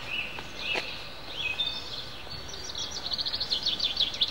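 Songbirds singing in the trees: a few short chirps, then a fast trill of quick repeated notes from about three seconds in, over a steady background hiss.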